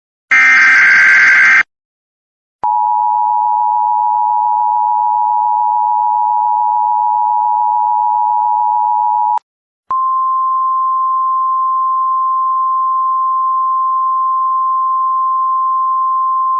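Emergency Alert System signals. A short burst of rasping digital data, the end of a SAME header, comes first. Then the two-tone EAS attention signal holds steady for about seven seconds, and after a brief break a single, slightly higher alert tone holds for about seven seconds and cuts off near the end.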